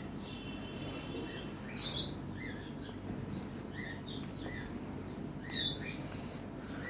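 Fingers mixing rice and mutton curry on a metal plate: soft, wet, squishy blips repeating about twice a second, with three sharp clicks against the plate, over a steady low background hum.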